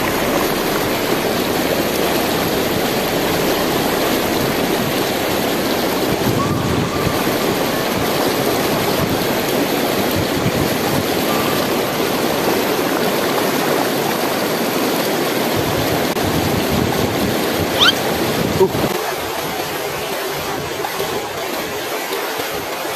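Shallow river rapids rushing over boulders, a loud, steady wash of fast-flowing water that eases slightly a few seconds before the end.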